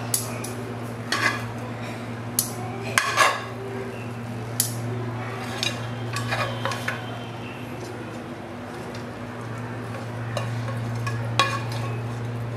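A serving spoon clinking and scraping against a metal pan and pot as grilled chicken pieces are lifted out and laid on a layer of rice: scattered sharp clinks, a few in quick succession, over a steady low hum.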